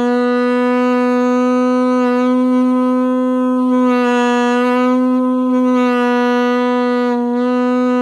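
Alto saxophone sounding one long, steady held note, played with a relaxed embouchure and the chin held down in a natural position so it does not press on the reed.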